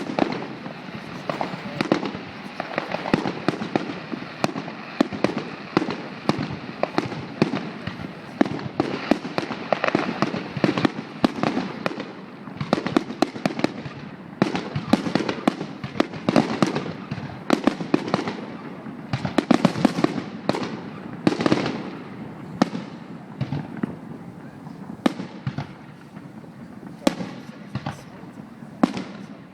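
Fireworks display: a rapid, continuous run of bangs and crackles, thinning to a few separate bangs over the last few seconds.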